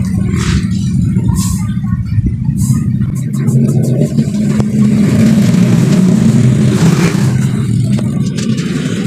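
A motor vehicle engine running steadily at low revs, getting louder from about three seconds in with a hiss over it, and easing off near the end.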